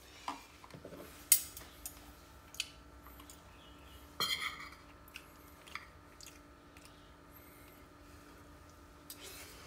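Metal spoon and fork clicking and scraping against a ceramic plate while cutting and scooping food: several separate clinks in the first half, the sharpest about a second in, then a short cluster, and quiet after. A faint steady hum lies underneath.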